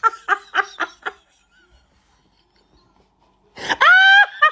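A man laughing hard: a quick run of short laughs, then after a pause of about two seconds a long, high-pitched wailing laugh, breaking into short laughs again at the end.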